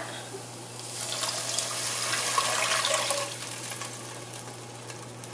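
Hot water poured from a glass measuring jug into a pot, a splashing pour that starts about a second in, builds, and tails off after about three seconds.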